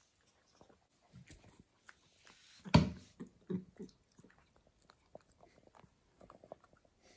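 A cat chewing and biting cheese close to the microphone, a run of small clicking mouth sounds, with one loud knock about three seconds in.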